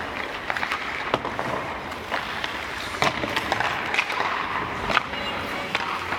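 Ice hockey skate blades scraping and carving on rink ice, with sharp clacks of sticks striking pucks and pucks hitting ice, several times over.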